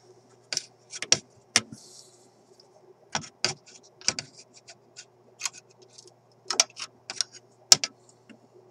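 Metal hand tools clicking and tapping against the wiring and solder lugs of a vintage radio chassis: irregular sharp clicks, the loudest near the end, over a faint steady hum.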